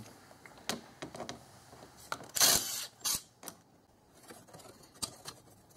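Plastic intake silencer duct being worked loose by hand: scattered light clicks and knocks, with a short scraping rustle about two and a half seconds in.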